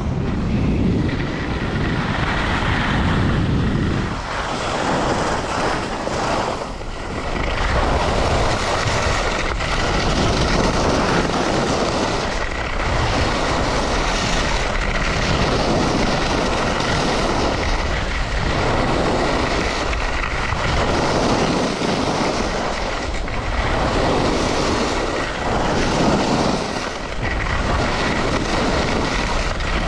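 Skis scraping and carving over chopped-up piste snow under heavy wind rush on the microphone, the noise swelling and easing with each turn about every two to three seconds.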